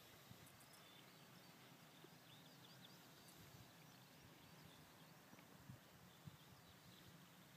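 Near silence with faint birdsong: many short, high chirps throughout. Two soft low thumps come about six seconds in.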